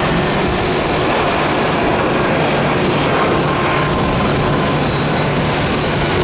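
Airbus A319 twin-jet airliner taking off, its engines at take-off thrust making a loud, steady noise with a low hum and a faint high whine through the middle.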